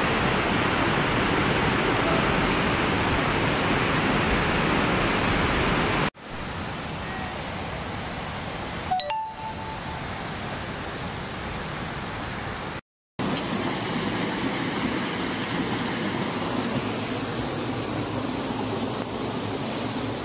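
Muddy flash-flood water rushing in a swollen river channel, a steady dense noise. It gets quieter about six seconds in, and cuts out briefly about two-thirds of the way through.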